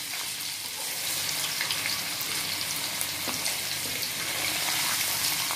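Paneer cubes deep-frying in hot cooking oil in a kadhai on high flame: a steady sizzling hiss with small scattered crackles.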